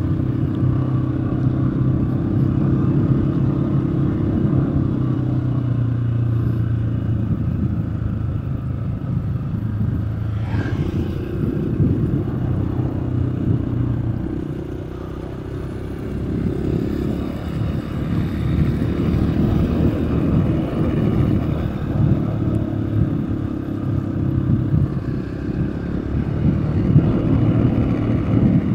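A vehicle's engine running while on the move, over a constant low rumble of wind and road noise; the engine note eases off about halfway through and then picks up again.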